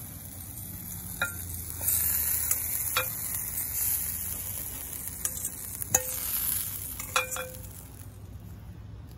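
Hot oil sizzling in a frying pan fresh off the fire while a metal fork scrapes fish pieces out onto a plate, with several sharp ringing clinks of the fork on the pan. The sizzle fades near the end.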